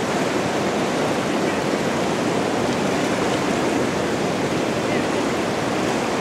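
River rapids rushing in a steady, unbroken noise of churning whitewater.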